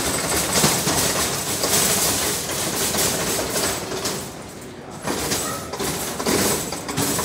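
A line of nested metal shopping carts rattling and clattering as they are pushed along, with a brief lull a little past halfway.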